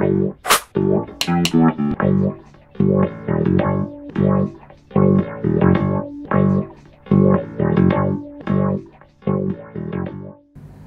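Background music: a plucked guitar tune over bass, notes in a steady rhythm, cutting off suddenly near the end.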